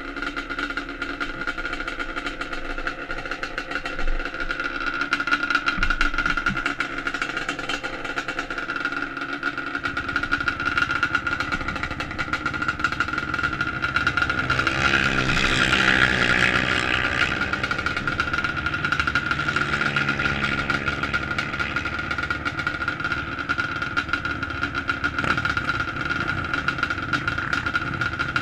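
Racing ATV engines idling at a start line, with a steady high tone running under them. About halfway through, one engine revs up louder for a couple of seconds.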